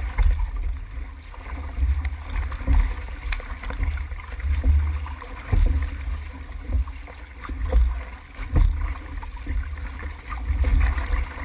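Water rushing and slapping along the hull of a six-person outrigger canoe under way, heard close up with a heavy low rumble, the loudness surging roughly once a second.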